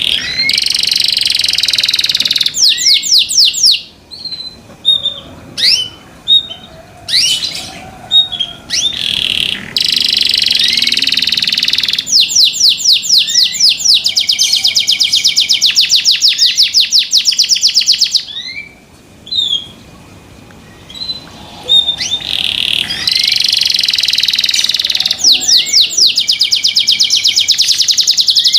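Domestic canary singing loudly in long, high-pitched song phrases full of fast trills, with short pauses between bouts filled by single chirps.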